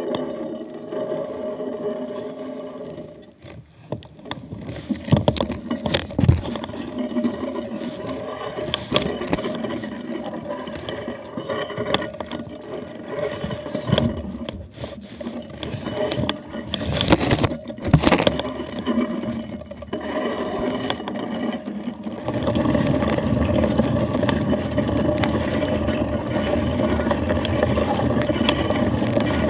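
Mountain bike rattling and knocking over a rough, muddy track, with wind buffeting the camera microphone. About two-thirds of the way through it changes to a louder, steady rush of wind with no knocks.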